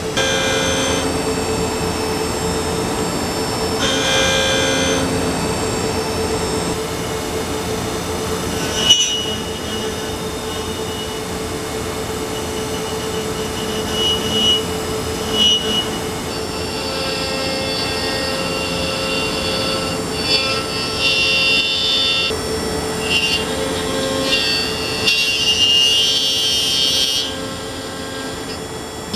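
Nakamura-Tome NTMX multitasking lathe milling a workpiece with a rotating cutter in its B-axis spindle. There is a steady hum, and over it a high-pitched cutting whine that comes and goes, most of the time in the second half.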